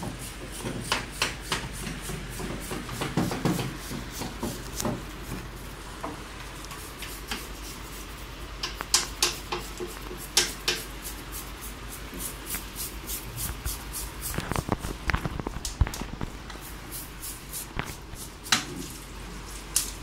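Irregular clicks, taps and scrapes of a hand tool and hands working on a window air conditioner's sheet-metal chassis, with several sharper knocks in the second half.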